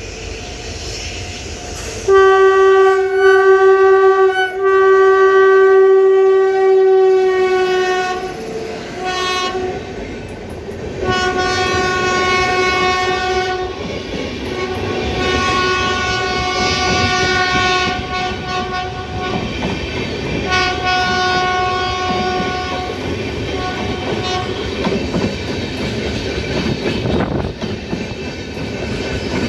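Electric locomotive's horn sounding several long blasts, the longest and loudest from about two seconds in to about eight seconds, with shorter ones following until about twenty-three seconds in. Under and after the horn, an express train's passenger coaches roll past with a steady rumble and wheels clacking over the track.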